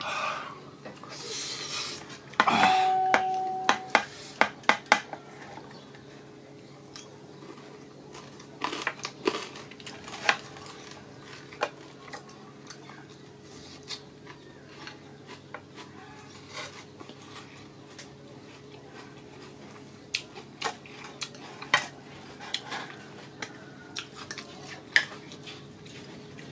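Metal fork clicking and scraping against a plastic sauce bowl and food tray, in scattered sharp clicks, with a quick cluster a few seconds in and another near the end.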